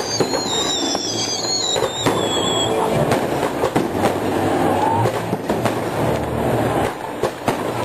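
New Year's Eve fireworks going off in rapid succession: a dense, unbroken crackle of sharp bangs and pops. Several wavering whistles, falling slightly in pitch, sound during the first three seconds.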